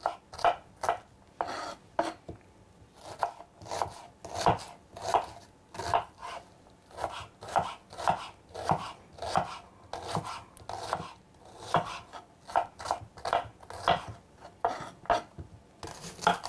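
Kitchen knife chopping an onion on a wooden cutting board: a steady run of knocks, about two a second, with a short pause about two seconds in.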